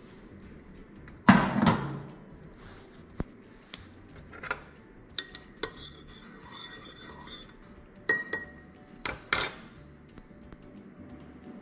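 A heavy enamel coffee pot clunks down on a cast-iron cookstove top about a second in. Later a metal spoon clinks and rings against the inside of a ceramic mug as coffee is stirred, then knocks down on a ceramic spoon rest.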